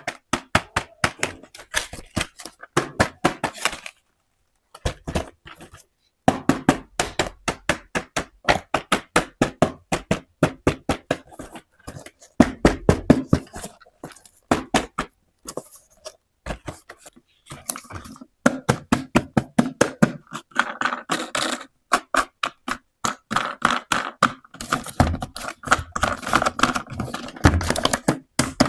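Quick runs of small clicks and taps, several a second with brief pauses, from miniature toy kitchen pieces being handled and set down.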